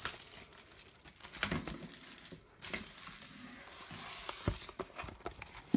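Faint rustling with a few light taps and clicks as a cardboard hobby box of trading-card packs and its wrapping are handled and opened.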